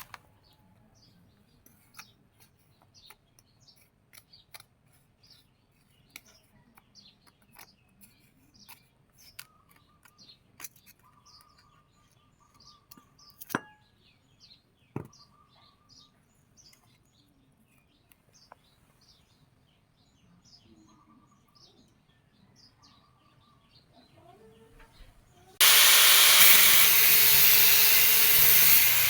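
Faint birds chirping, with a few sharp clicks. Near the end a power tool starts abruptly, giving a loud, steady grinding noise that drowns everything else.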